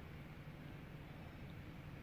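Faint steady low electrical hum with light background noise.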